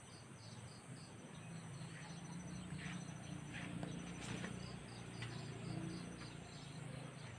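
Insects chirping in an even pulsing rhythm, about four chirps a second, over a steady high-pitched insect drone, with a few faint clicks.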